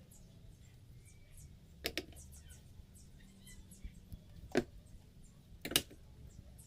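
Three sharp clicks or knocks, about two seconds in, then two louder ones more than a second apart near the end, over a faint low hum.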